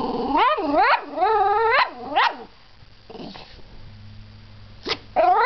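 Small terrier barking in a string of three or four drawn-out barks that slide up and down in pitch. A pause follows, then another bark starts near the end.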